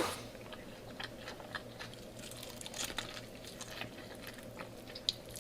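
A person chewing and biting food close to the microphone: quiet crunching and mouth sounds, with many small irregular clicks over a faint steady hum.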